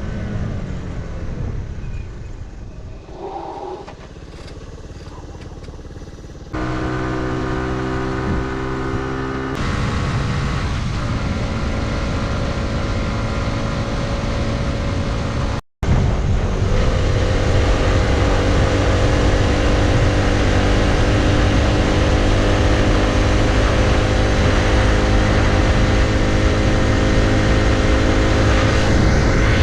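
Honda CT90's small single-cylinder four-stroke engine running steadily, in several spliced stretches: the sound changes abruptly twice early on and drops out for a moment about halfway, then runs on at a steady pitch.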